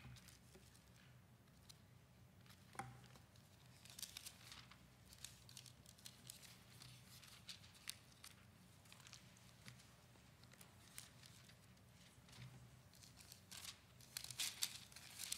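Faint rustling of thin Bible pages being turned, a scattering of short papery flicks and crinkles over a steady low room hum.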